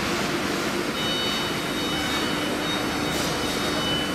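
CNC router running while engraving a wooden door: steady machining noise with a constant whine from the spindle, a higher tone joining about a second in.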